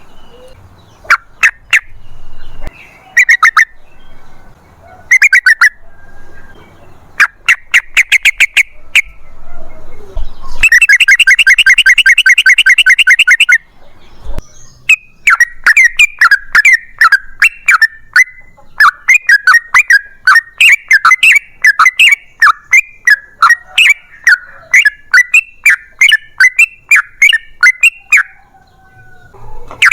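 Yellow-vented bulbul (trucukan) singing loudly. Short bursts of rapid bubbling notes give way to a dense rattling phrase, then a long unbroken run of quick chattering notes through most of the second half.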